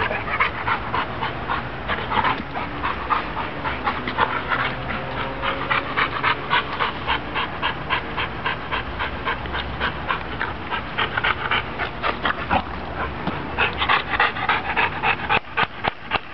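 Pit bull panting hard with its mouth open, in a quick, steady rhythm of breaths.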